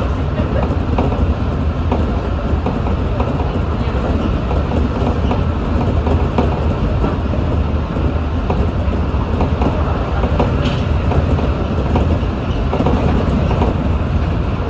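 Electric train running along the rails, heard from inside the front car: a steady low rumble of wheels on track with scattered light clicks.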